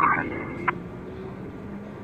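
The tail of a police radio transmission, a thin tinny voice, cuts off just after the start. It is followed by a short beep that ends in a click. A steady low hum of idling vehicle engines runs underneath.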